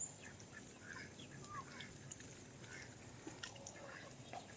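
Backyard poultry calling faintly: short, scattered quacks and clucks.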